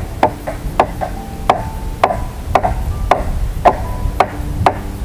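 A hand tool striking wood in steady, sharp blows, about nine strikes at roughly two a second.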